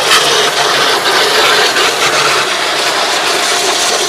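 Shakti S3 high-pressure car washer running while its jet sprays water into a car's wheel arch and along the side panels: a steady motor hum under the loud hiss and spatter of the spray on metal and tyre.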